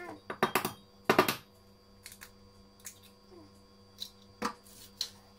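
Hen's eggs being cracked: a few sharp knocks of the shell on a hard edge about half a second and a second in, the second the loudest, then scattered light clicks as the shell is pulled apart over the bowl.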